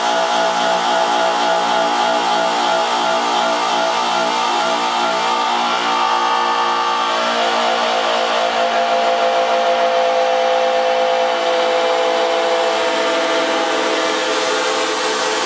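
Electro-acoustic sound sculpture built from a yellow rubber tube on PVC pipe, its tube pinched by small servo-driven arms, sounding a loud, sustained buzzing drone of many steady tones. The pitches shift about halfway through.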